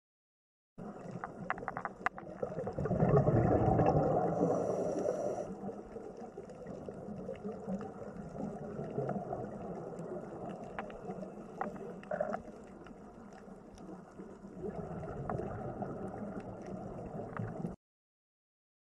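Water gurgling and splashing, loudest a few seconds in, with scattered small clicks. It starts and cuts off abruptly.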